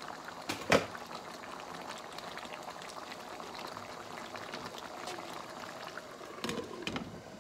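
Thick, nearly reduced adobo sauce bubbling and sizzling steadily in a nonstick pot on a gas burner. There is a sharp knock less than a second in, and a few clinks near the end as a glass pot lid is handled.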